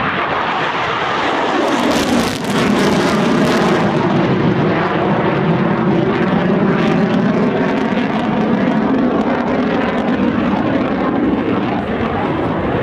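Eurofighter Typhoon's twin EJ200 turbofan jet engines flying past overhead in a display turn. The sound swells about two seconds in into a harsh, crackling rasp for a couple of seconds, then holds as a loud, steady jet noise.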